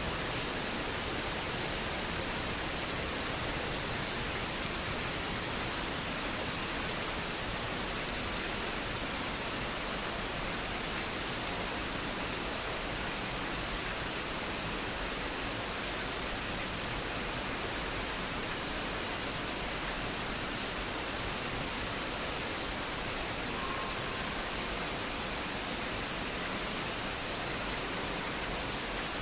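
Waterfall pouring steadily: an even rush of falling water that does not let up.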